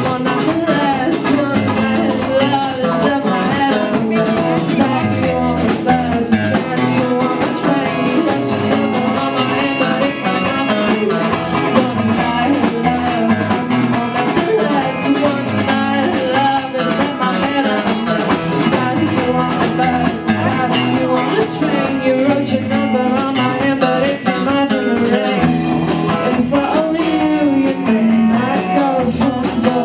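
Live rock band playing: a woman sings lead into a microphone over electric guitars and a drum kit.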